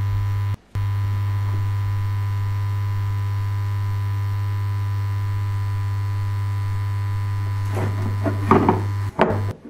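Loud, steady low electrical hum that cuts out briefly about half a second in. Near the end come a few rustling scrapes, and then the hum starts breaking off in short gaps.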